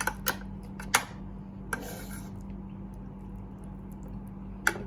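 Cutlery clicking and scraping against a plate during a meal: a few sharp clinks, a short scrape about two seconds in, and another clink near the end, over a steady low hum.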